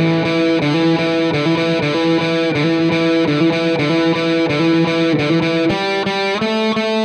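Background music led by a distorted electric guitar playing held notes that change in pitch every half second or so.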